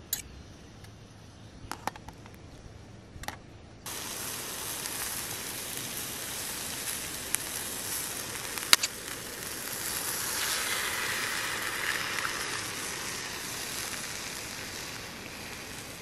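A few light clicks of a fork against a small camping pan of tomatoes and onions, then about four seconds in the steady sizzle of the vegetables frying over a gas canister stove. A sharp crack comes about halfway through as an egg is broken, and the sizzling grows louder as the egg goes into the hot pan.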